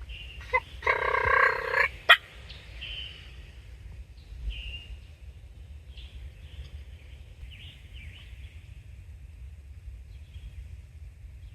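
A wild turkey gobbler gobbles once, about a second in, with a sharp click just after. Faint high chirps of small birds follow.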